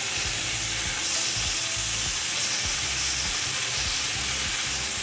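Marinated chicken pieces sizzling in sesame oil in a hot frying pan, a steady hiss as the meat is seared to brown it.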